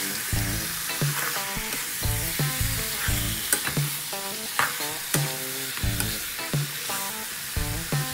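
Chopped pork offal and curry paste sizzling in a hot wok as a spatula stirs them, over background music with a steady beat.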